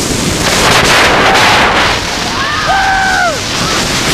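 Iron Gwazi's hybrid roller coaster train running fast on its steel rail, with a loud rush of wind and track noise, heaviest in the first half. Past the middle, a rider gives one long held yell that drops away at its end.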